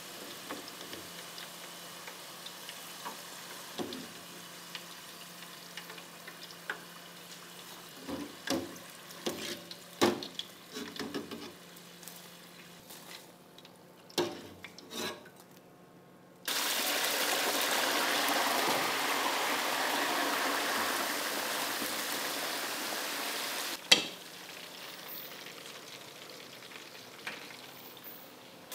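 Potato chips frying in hot oil, with a metal spoon clinking against the pot as they are lifted out. About halfway through, a much louder, even sizzle comes in for about seven seconds and cuts off with a sharp click.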